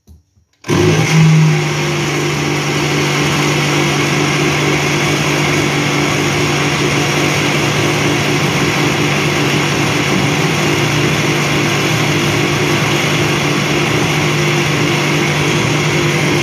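Countertop blender motor starting up a little under a second in and then running steadily, blending liquid carrot cake batter in its glass jar.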